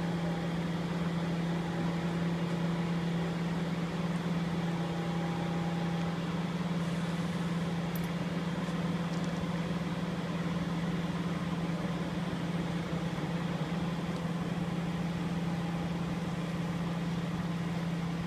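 Large engine of heavy lifting equipment running steadily at one even pitch while a streetcar hangs from a crane's slings.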